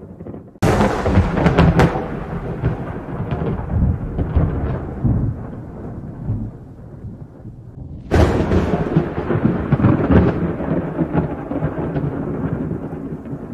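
Thunder: a sudden sharp crack about half a second in that rolls into a long rumble and slowly fades, then a second crack about eight seconds in followed by more rolling rumble.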